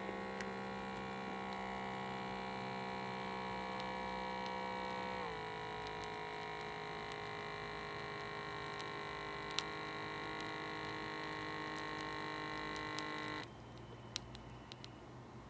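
Electronic upper-arm blood pressure monitor's small air pump running steadily, inflating the arm cuff. It drops slightly in pitch about five seconds in and cuts off suddenly about thirteen seconds in as the cuff reaches full pressure, followed by a few faint ticks as the cuff begins to deflate.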